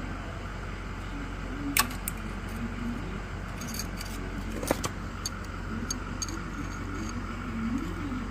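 A steel chisel or pick clinking and scraping against the old pilot bushing in the crankshaft end as it is broken up and worked out, with a few sharp metallic clicks, loudest about two seconds in and just before five seconds, over a steady low hum.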